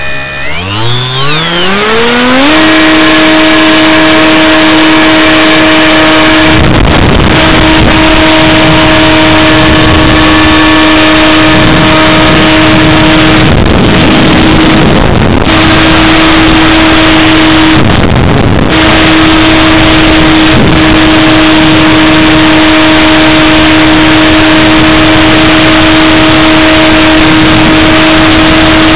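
HK Bixler model plane's electric motor and pusher propeller spinning up to full throttle, the whine rising steeply over the first two seconds and then holding a steady high pitch. The whine breaks off briefly a few times under a rush of noise, and it is loud because the microphone rides on the plane.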